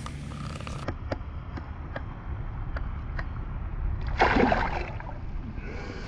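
A small largemouth bass splashing into pond water as it is tossed back, a short splash about four seconds in, over a low steady rumble, with a few light clicks before it.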